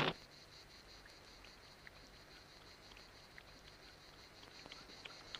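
Faint open-country ambience: scattered small chirps and ticks over a steady faint high hiss, getting a little busier near the end. A loud noise cuts off abruptly right at the start.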